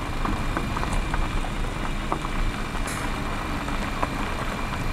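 A car driving on a gravel road: steady tyre and engine noise with small scattered ticks of gravel under the tyres.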